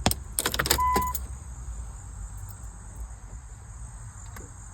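A few sharp clicks of a key turning in the ignition of a 2007 Chrysler Town & Country and a short electronic beep from the dash, with no engine cranking: the starter has failed and does nothing.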